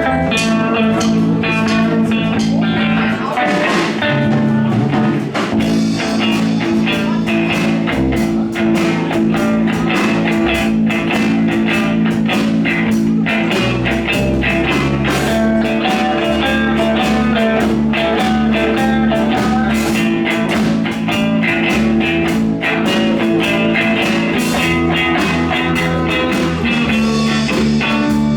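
Live band playing an instrumental blues-rock passage: guitar over a drum kit, steady and loud.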